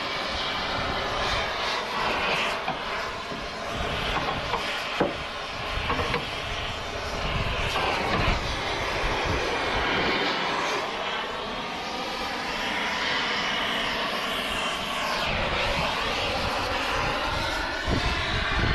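A steady, loud mechanical roar with slowly shifting tone, broken by a few short knocks.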